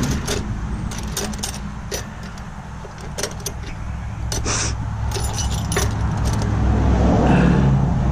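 Small brass hose-barb fittings clinking and rattling as they are handled, a scatter of short sharp metal clicks over a steady low hum.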